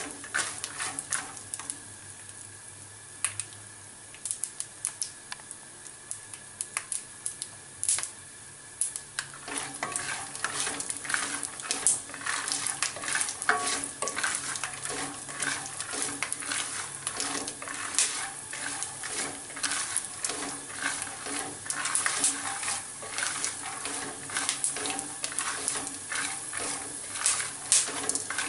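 Peanuts with chana and urad dal frying in oil in a nonstick kadai, stirred with a plastic spatula: a steady sizzle with scraping and many sharp crackling clicks, which get much busier about a third of the way in. The crackle is the sign that the peanuts are roasting through.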